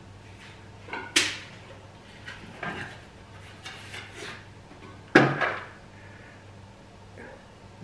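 Handling noise while unpacking a thermal cooker: cardboard packing and stainless steel pots being moved about. Scattered knocks and rustles, with a sharp knock about a second in and the loudest knock about five seconds in.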